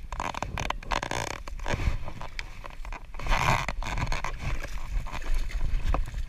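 Baitcasting reel being cranked as a hooked smallmouth bass is fought in, with many rapid clicks. The fish thrashes and splashes at the surface about three seconds in.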